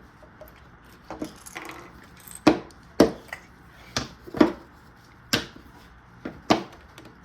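Irregular sharp clicks and knocks, about seven of them, of plastic Lego pieces being handled and set down on a hard surface, with faint rustling between.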